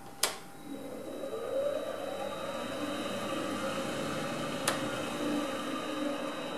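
A switch clicks, and an old Hitachi 1 hp three-phase motor, run from an inverter, spins up a grinding wheel and a cotton buffing wheel. Its whine rises in pitch over about two seconds as the inverter ramps the speed, then holds steady. A sharp click comes about four and a half seconds in.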